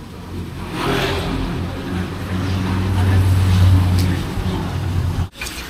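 A motor vehicle engine running close by in street traffic, a steady low hum that grows louder through the middle and cuts off suddenly near the end.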